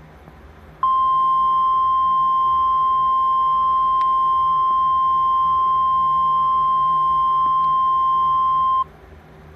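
Emergency Alert System attention tone from the EAS Simulator Pro app: a single loud, steady high tone that starts about a second in, holds for about eight seconds and cuts off abruptly.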